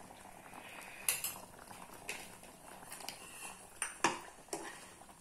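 Metal spoon clinking and scraping against metal pans as ghee-roasted grated coconut is scraped off a small pan into a pot of thickened milk, then stirred in. There are a few sharp clinks, the clearest about a second in and around four seconds in.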